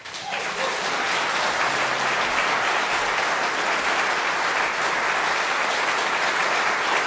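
Audience applause, breaking out as the music ends and swelling to a steady level within about a second.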